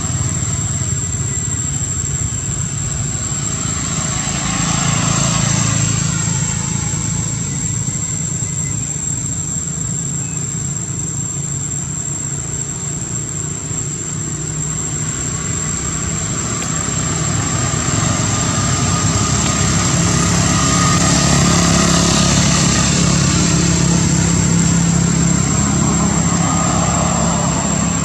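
Outdoor motor-traffic noise: a low engine hum that swells louder about five seconds in and again through the last third, with a thin, constant high-pitched whine above it.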